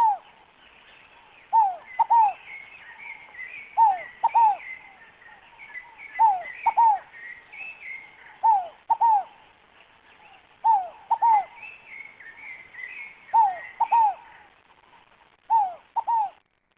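Scaled dove (fogo-apagou) cooing: a repeated two-note phrase of falling hoots, about one phrase every two to three seconds. Fainter twittering from other small birds runs underneath for much of the time, and the cooing stops abruptly near the end.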